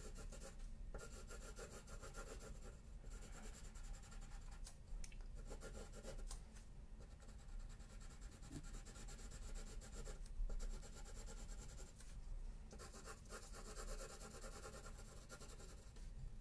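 Pencil shading on paper: faint scratchy strokes in runs, with short pauses between them.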